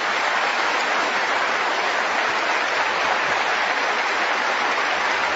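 An audience applauding, the clapping dense and steady.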